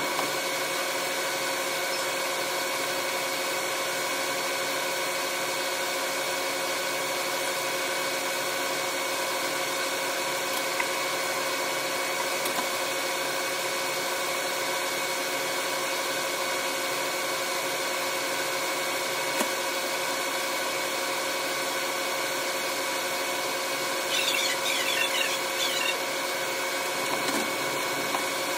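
Running sound of a KiHa 185 series diesel railcar, sped up sixfold into a steady drone of several held tones. A brief flurry of wavering squeals comes about 24 seconds in.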